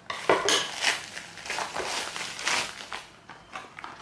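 Parcel packaging rustling and crinkling as it is opened by hand, in a series of short, irregular rustles.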